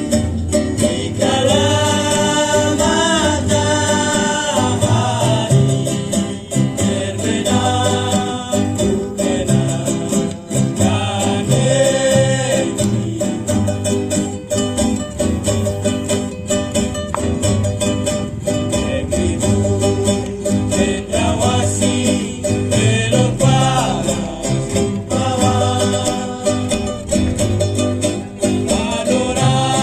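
Acoustic band playing a song: plucked and strummed string instruments over a steady, pulsing bass line, with voices singing the melody.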